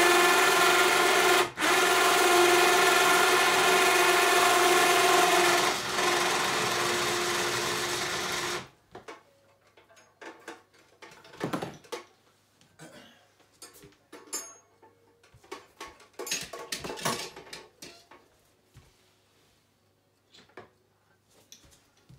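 A 12-volt four-wheeler (ATV) winch motor runs with a steady whine while lowering a hung wolf carcass. It has a brief break about one and a half seconds in, drops somewhat in level about six seconds in, and stops suddenly about nine seconds in. Quieter clicks and knocks of handling follow.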